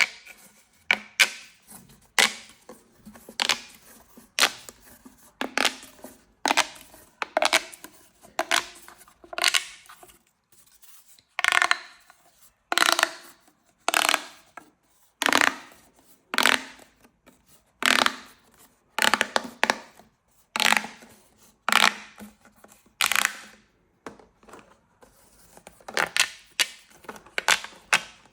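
Corrugated plastic pop tubes being stretched and squashed, their ridges snapping with sharp crackling pops in quick clusters, about one to two a second with short pauses.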